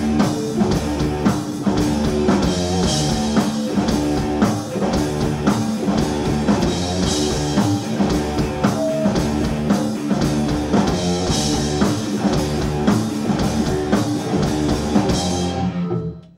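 Live stoner rock band playing an instrumental passage on distorted electric guitars, bass and drum kit through Marshall amps, with cymbal crashes every few seconds. The sound cuts off abruptly near the end.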